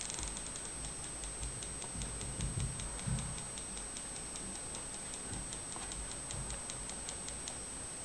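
Unipolar stepper motor stepping: a quick run of clicks at the start, then an even ticking of about six steps a second that stops shortly before the end. A few dull thumps come in the middle.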